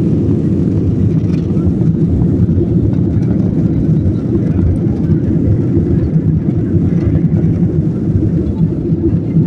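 Airliner taxiing, heard from inside the passenger cabin: a steady low rumble from the jet engines and the plane rolling along the taxiway, with no rise in thrust yet.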